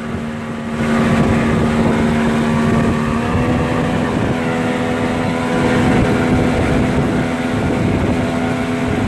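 Motorboat engine running steadily at cruising speed, a constant drone, with the rush of water from the churning wake beneath it.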